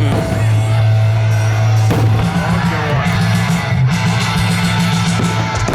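Loud rock music with electric guitar, steady throughout.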